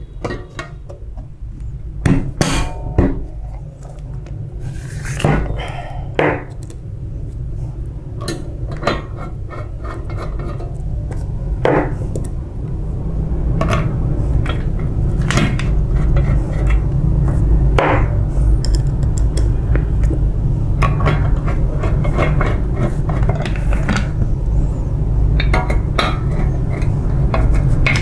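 Screwdriver and small screws clicking and knocking against a photocopier drum's metal cylinder and plastic end flange as the flange is screwed back on, in scattered small clinks. Under them runs a steady low hum that grows louder about halfway through.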